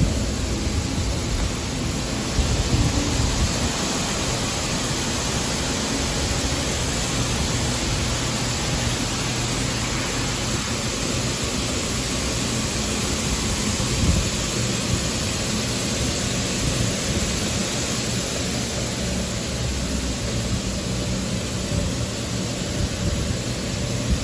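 Mark VII touch-free automatic car wash spraying a car with its overhead arch jets during the pre-soak stage: a steady hiss of spray over a low machinery rumble.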